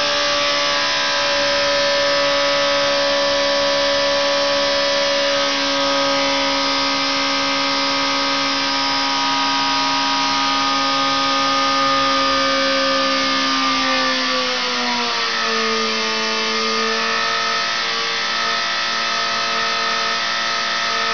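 Engine running on a dynamometer in a test cell, a steady multi-tone drone whose pitch eases down, falls more sharply about two-thirds of the way through as the engine speed is brought down, then holds steady at the lower speed.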